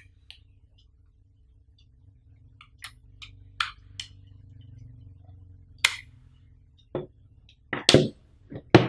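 Handling sounds of a Xiaomi PLM11ZM wireless power bank and its USB cable: scattered small clicks and taps of plastic and cable. Near the end come a few louder knocks as the power bank is set down on the table.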